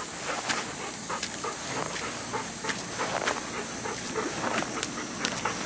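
Bernese Mountain Dog moving about on concrete steps: scattered sharp clicks and taps at irregular times over a steady background hiss.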